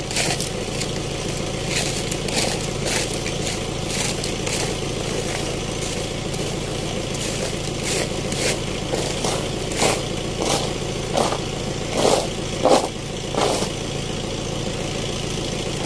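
Loose oil palm fruitlets being scraped up by hand and dropped into a woven basket: irregular rattles and scrapes, more frequent in the second half, over a steady engine hum.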